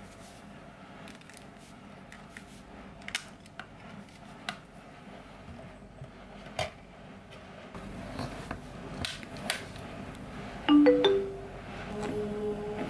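Light clicks and taps as a CD is lifted from its case and pressed onto the spindle of a top-loading CD player. About eleven seconds in, the player gives a short electronic chime of three quick stepped tones, the loudest sound, and music starts softly near the end.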